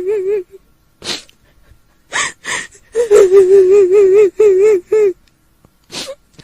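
A woman's voice wailing in long trembling, wavering cries, with sharp gasping breaths in between, presented as a kuntilanak (Indonesian female ghost) weeping. A short wail ends just after the start, gasps follow about one and two seconds in, then a longer wail runs for about two seconds, and another gasp comes near the end.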